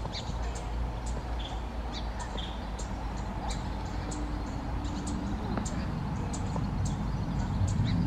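Shallow water with small splashes from a Townsend's warbler bathing and fluttering its wings, under many short, high bird chips. The low splashing grows louder near the end.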